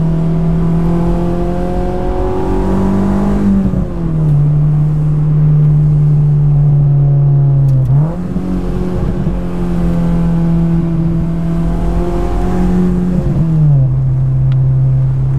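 Honda S2000 (AP2) 2.2-litre four-cylinder engine pulling hard through the gears with the top down, its note climbing slowly in each gear. The pitch drops suddenly with an upshift a few seconds in, jumps up with a downshift about halfway, and drops again with another upshift near the end.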